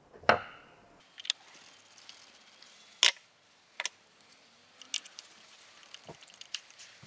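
Scattered metal clicks and knocks as the stainless steel top cap of a solar screw pump is fitted back on and a screwdriver works its screws. The loudest is a knock about a third of a second in.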